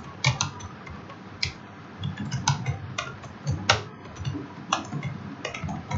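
Computer keyboard typing: irregular keystroke clicks, some in quick runs of two or three, with short pauses between.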